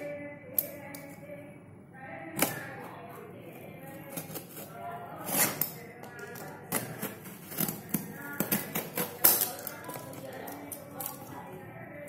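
Irregular sharp clicks, taps and knocks of a snap-off utility knife working at the packing tape on a cardboard parcel, the loudest about nine seconds in.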